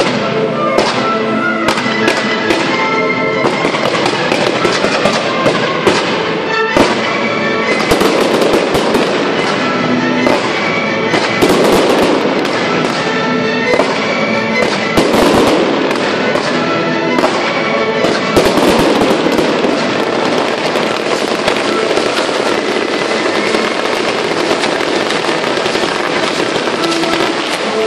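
Fireworks display going off continuously: many bangs and crackles in quick succession, with the accompanying show music playing underneath.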